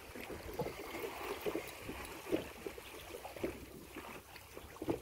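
Water lapping against the hull of a small fishing boat, with a steady wash of sea and wind noise and a few soft knocks.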